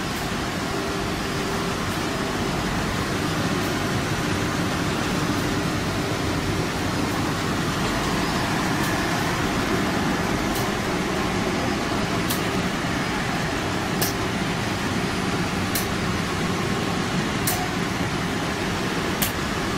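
Wood veneer printing line running: a steady machine hum and whir from the rollers and drives, with a light click that repeats about every second and a half to two seconds, plainer in the second half.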